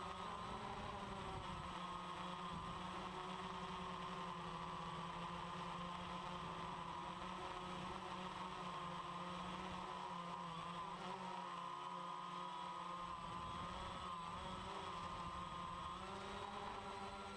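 DJI Phantom 1 quadcopter's motors and propellers whining steadily in flight, heard from the camera mounted on the drone itself; the pitch wavers slightly as the motors change speed.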